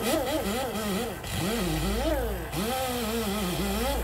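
A voice singing a melody, with gliding and held notes, over a steady low hum that comes in about one and a half seconds in.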